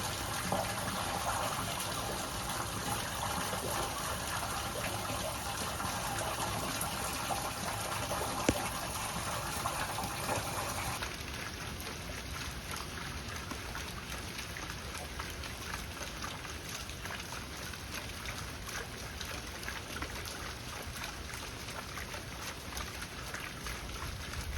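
Steady rain falling, a dense hiss of countless drops. About eleven seconds in it becomes quieter and softer, and a single sharp click stands out a little before that.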